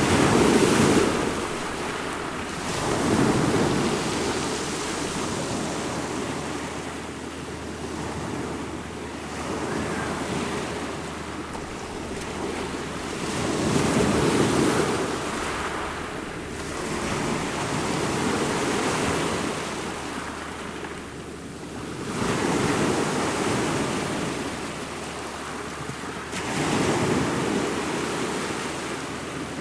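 Ocean waves breaking and washing on a shore, a steady rush of surf that swells and ebbs every three to four seconds.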